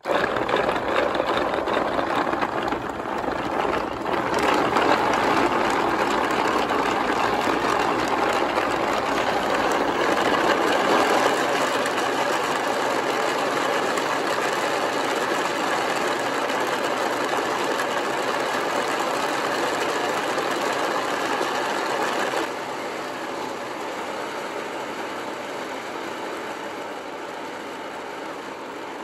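Battery-powered model car's motor and gearbox running, turning a wooden-geared odometer: a steady, dense mechanical whirring rattle. The level drops about three-quarters of the way through and then fades slowly as the battery runs down.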